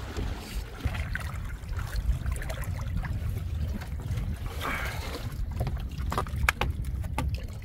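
Seawater lapping and sloshing around a man wading beside a boat's bamboo outrigger, over a steady low rumble of wind on the microphone. From about five seconds in, a splash and then a quick run of small sharp drips and ticks as a line is worked up out of the water.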